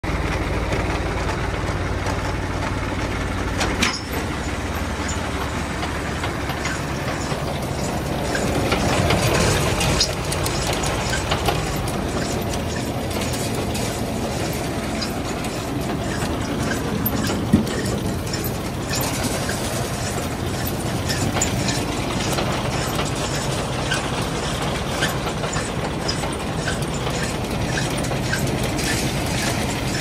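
Tractor running a Wühlmaus potato harvester through its PTO shaft: a steady mechanical hum with the harvester's workings rattling and clattering. There is a sharp knock about four seconds in, and the clatter turns to many quick ticks in the second half.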